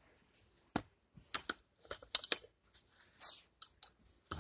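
Fresh snow crunching and rustling in short irregular bursts as dogs push their noses and paws through it, with a sharper crunch about two seconds in.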